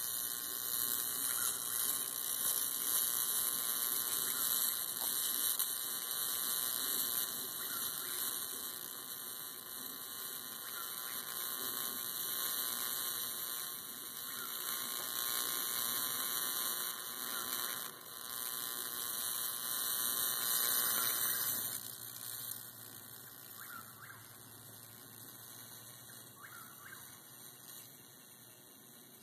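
Electric bug zapper's high-voltage grid arcing through an insect caught between its wires: a continuous sizzling hiss that holds for about twenty seconds, then dies down to fainter, occasional crackles.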